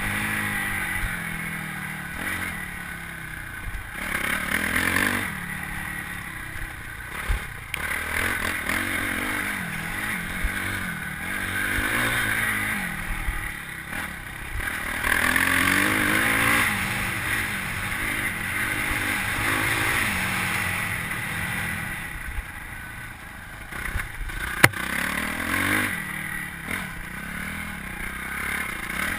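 Suzuki RM-Z250 four-stroke single-cylinder dirt bike engine heard from on board, revving up and falling back again and again as the rider opens and closes the throttle and shifts on a dirt track. A sharp knock stands out about three quarters of the way through.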